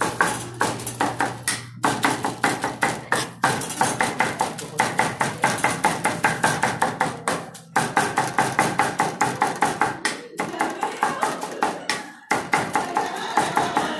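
Meat cleaver chopping cooked meat on a thick wooden chopping block: a rapid, even run of knocks, broken by a few brief pauses.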